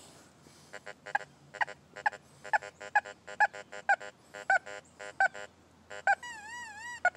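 Fisher F75SE metal detector giving short beeps, all at the same pitch, about two or three a second, as its coil sweeps over a dime lying beside a large hand-cut iron nail. The detector keeps signalling the dime and is not masked by the big piece of iron. A brief warbling tone comes in near the end.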